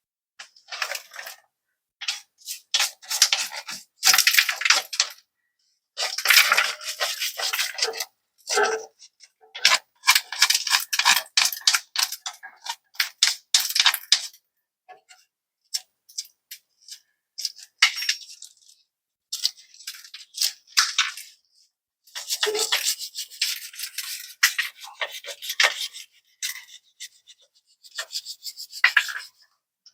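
Hand brush scrubbing crusty rust and grime off metal in quick back-and-forth strokes, in bouts with short pauses between them.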